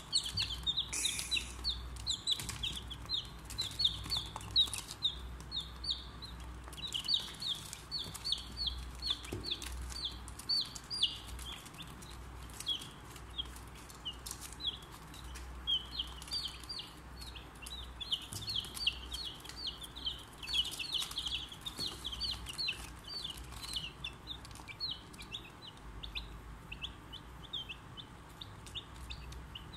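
Four-day-old chicks peeping, a near-continuous run of rapid, high-pitched peeps, each falling in pitch, with a few short clicks among them.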